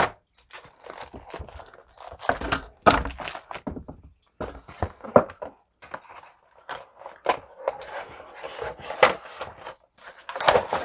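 Cardboard packaging and boxed art supplies being handled and set down on a desk: irregular soft knocks and thumps with some rustling of cardboard and shrink-wrap between them.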